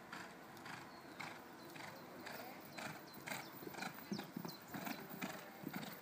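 A horse's hooves thudding on a sand arena at a canter, getting louder from about four seconds in as the horse comes closer.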